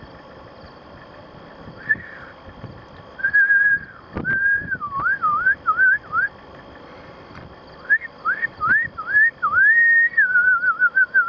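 A person whistling through the lips: held notes and quick slides up and down in short phrases, starting about two seconds in and ending with a wavering trill. A single knock just after four seconds.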